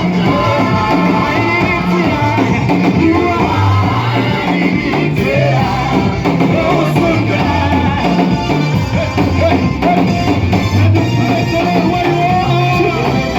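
Praise music from a live band, with a bass line stepping between notes, drums and voices singing.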